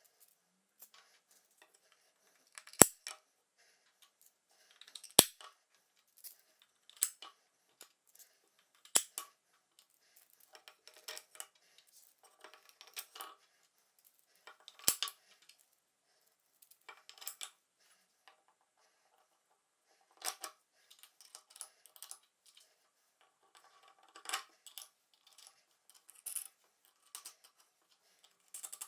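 Hand work at a workbench: several sharp knocks and clicks from tools and workpieces being handled, with short scraping sounds between them and quiet gaps.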